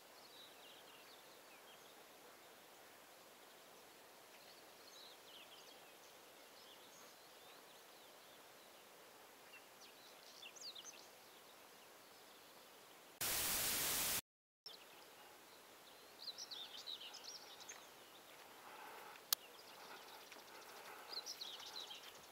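Songbirds chirping and calling in short scattered phrases over a steady faint hiss of open meadow. About 13 seconds in, a second of loud hiss cuts off into a brief gap of silence, and a single sharp click follows a few seconds later.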